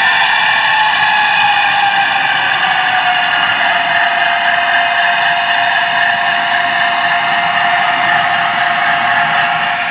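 HO-scale Piko model train running past: a steady whir and rolling hiss of wheels on the track, with a whine that falls in pitch over the first few seconds and then holds steady. It stops just at the end.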